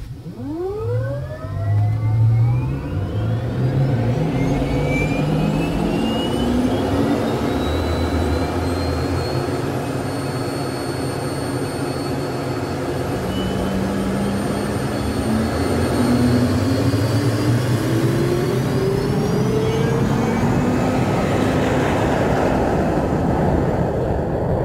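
Jet engine spool-up sound effect: a whine that sweeps sharply upward in the first two seconds, then a steady rushing engine noise with tones that keep rising slowly, as if accelerating toward takeoff. The noise grows broader and fuller near the end.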